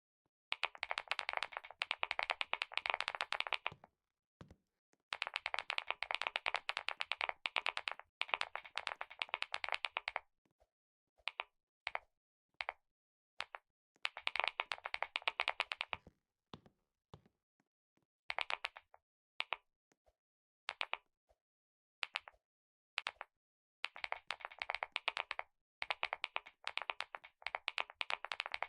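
Typing on a computer keyboard: runs of fast keystrokes lasting a few seconds each, broken by short pauses with single key presses in between.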